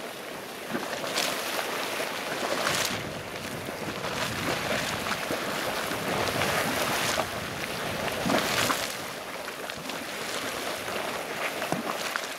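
Dog Bone Geyser in a low eruption: hot water splashing and surging in its vent, swelling and easing in uneven pulses.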